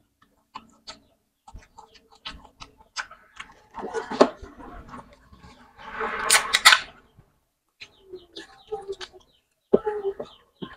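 Close-miked eating sounds: scattered chewing clicks and lip smacks, then an aluminium soda can and plastic straw being handled, with a louder crackling rush about six seconds in and sipping through the straw near the end.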